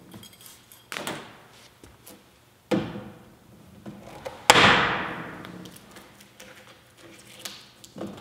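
Three hard thunks roughly two seconds apart, the third the loudest, each ringing out and fading slowly through an echoing workshop, then a lighter knock near the end.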